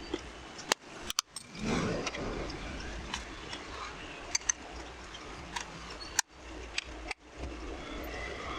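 Scattered sharp clicks, taps and knocks of tools and small metal parts being handled during an angle grinder repair, over a steady low hum. The sound cuts out briefly three times.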